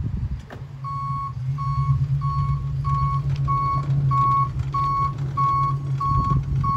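Backup alarm on a CSX hi-rail pickup truck beeping steadily, just under two beeps a second, starting about a second in, over the steady hum of the truck's engine as it moves along the rails. A short knock about half a second in.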